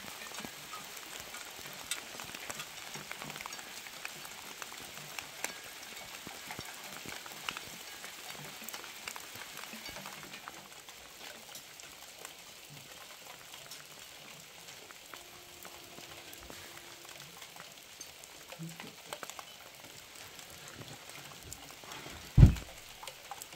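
Steady rain pattering, a dense patter of small drops that drops a little in loudness about halfway through. Near the end, a single heavy thump.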